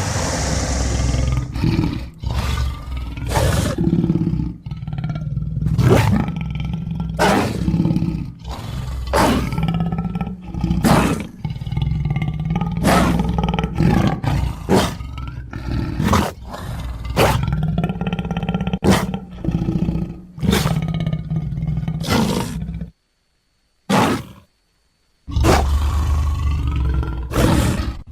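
Creature sound effects for a Dimetrodon limbatus: short roars and growls over a low rumble, played one after another, each cut off sharply, with a brief silence about 23 seconds in.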